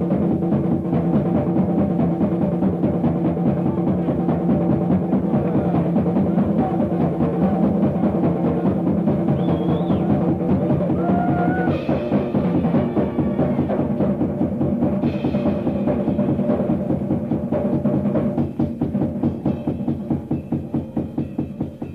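Instrumental jazz-rock band music: busy, fast drumming and percussion over sustained low chords, turning choppier near the end.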